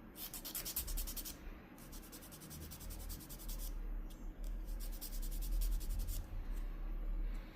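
A nail being filed into shape in quick, rapid scratching strokes, coming in several spells with short pauses between them; the nail is a broken natural nail repaired with glued cotton.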